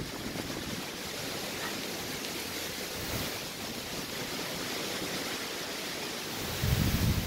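Steady hiss of hurricane rain and wind. Near the end a gust buffets the microphone with a low rumble.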